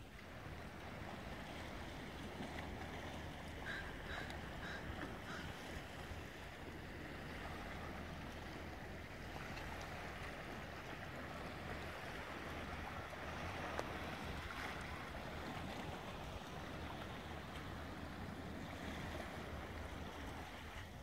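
Steady seashore ambience: small waves washing against a rocky shore, with wind on the microphone.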